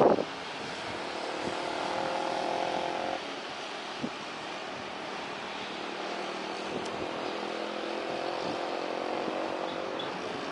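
Motor vehicles, motorcycles among them, passing on a road with a steady engine hum that swells twice, under a haze of wind noise.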